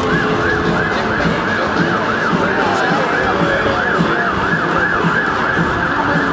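Emergency vehicle siren in a fast yelp, rising and falling about three times a second over dense street noise, stopping near the end.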